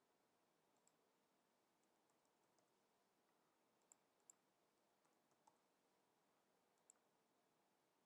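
Near silence with a few faint, scattered clicks from a computer keyboard and mouse as login fields are typed in. The loudest are two clicks close together about four seconds in.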